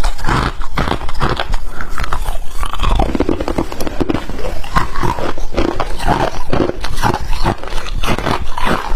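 Freezer frost being chewed: dense, continuous crunching of powdery ice between the teeth.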